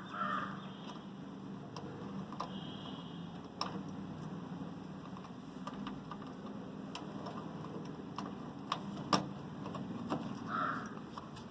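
Scattered light clicks and taps of small plastic connectors and cables being handled and plugged in, over a steady low hum. Two short chirps sound near the start and about ten seconds in.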